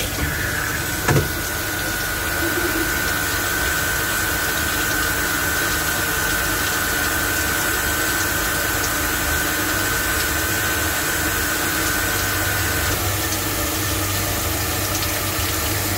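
Hanwha XP12S CNC Swiss-type lathe running: a steady machine hum and rushing hiss, with a single knock about a second in and a steady high whine that stops about 13 seconds in.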